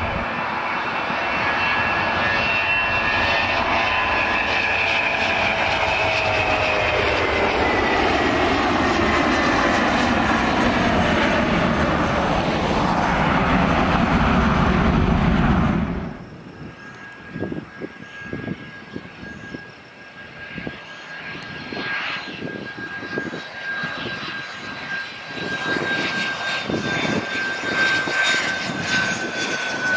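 A Boeing 717's two rear-mounted jet engines at takeoff power, loud and steady with whines that slowly fall in pitch as it rolls and climbs away; the sound cuts off abruptly about halfway through. Then a much quieter Learjet on approach with its gear down: a thin steady engine whine slowly sinking in pitch.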